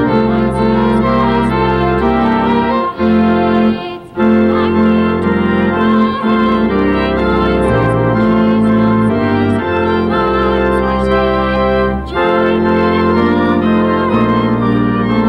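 Church organ playing a slow recessional of sustained chords that change every second or so, with short breaks between phrases about four seconds in and again about twelve seconds in.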